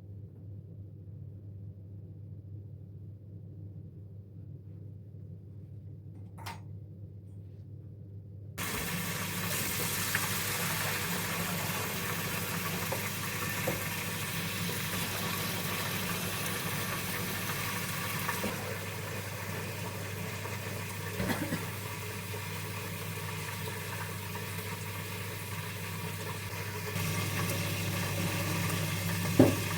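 A low steady hum, then about eight seconds in a loud steady rushing noise switches on abruptly and keeps going, with a single click shortly before it starts.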